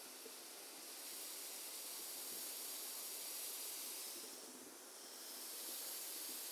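Steady electronic hiss from a ConXeasy amplified speaker switched on with no music playing: the noise floor of its built-in amplifier, loud enough to hear from about five feet back. It grows a little louder about a second in and dips briefly past the middle.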